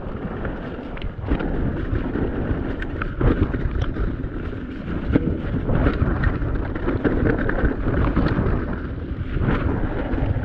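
Mountain bike riding fast down a rough trail: steady wind noise on the action camera's microphone, with frequent sharp clunks and rattles as the bike hits bumps.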